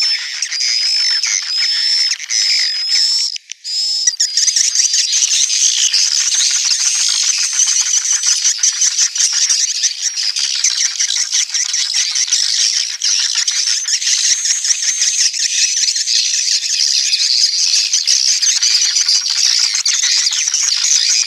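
Recorded swiftlet calls used as a swiftlet-house lure: a dense, continuous chatter of many high, short twittering chirps. A steady high whistle tone runs under the chirps for the first three seconds, and the sound drops out briefly about three and a half seconds in.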